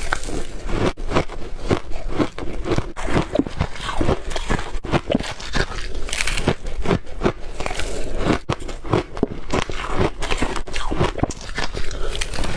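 Close-up crunching of someone biting and chewing shave ice: a rapid, continuous run of crisp crackles and crunches.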